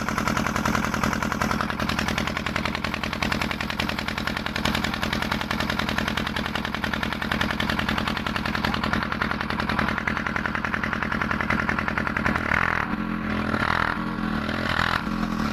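An engine running steadily, with a rapid rattling beat of closely spaced pulses; a few short higher sounds come in near the end.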